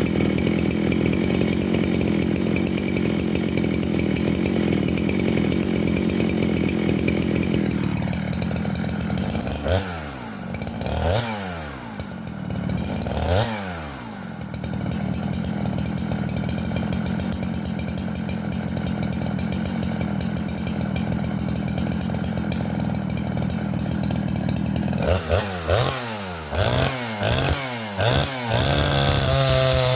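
Craftsman chainsaw with a 20-inch bar and full-chisel chain cutting through hard, fresh-cut white oak, the engine running steadily under load. Its speed rises and falls quickly several times, once about ten to fourteen seconds in and again just before the end, and it then settles into a different steady tone.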